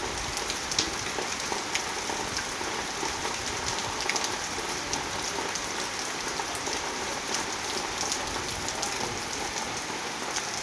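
Steady rain falling, with many small drops ticking sharply on a surface.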